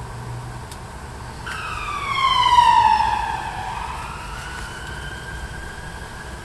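A siren wail: it comes in suddenly about a second and a half in, slides down in pitch to its loudest point, then rises slowly again as it fades, over a steady background hiss.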